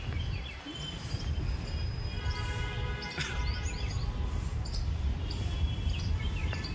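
Birds chirping and calling in trees, with short high notes, trills and quick rising chirps, over a steady low outdoor rumble.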